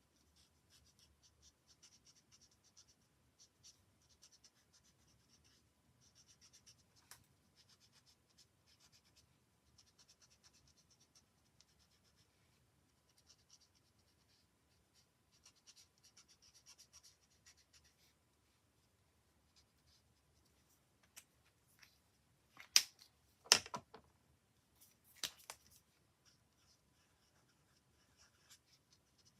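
Marker pen nib colouring on card: faint, intermittent scratchy strokes. About three-quarters of the way through come two or three sharp clicks, the loudest sounds here.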